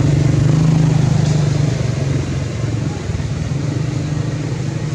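A motor engine's low, steady drone, loudest for the first two seconds and then easing off somewhat.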